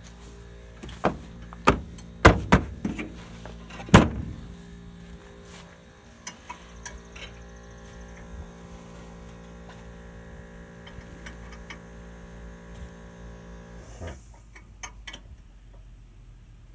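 Several sharp knocks in the first four seconds, the last one the loudest, over a steady machine hum that cuts off about fourteen seconds in, followed by a few small clicks.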